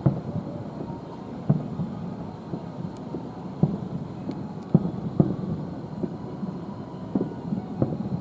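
Aerial fireworks shells bursting at a distance: about seven deep booms at irregular intervals over a steady low rumble.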